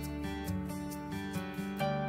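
Background music: gentle acoustic guitar, plucked notes ringing over a steady low tone.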